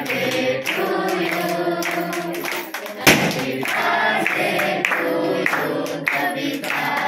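Several voices singing together with music, and hands clapping along. A single sharp bang about three seconds in is the loudest sound.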